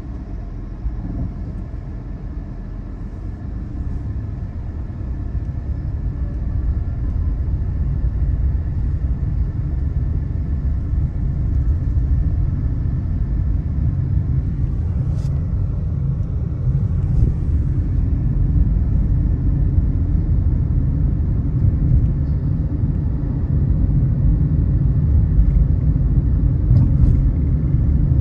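Low, steady rumble of a car on the move, road and engine noise, growing gradually louder; a few faint ticks sound about halfway through and near the end.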